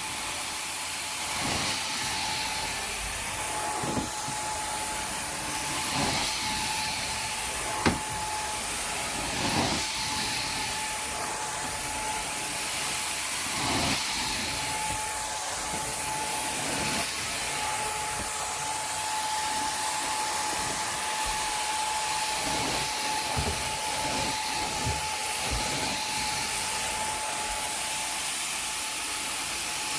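Carpet-cleaning suction machine running steadily with a constant whine under a hiss of air, surging about every two seconds as strokes pass over the carpet.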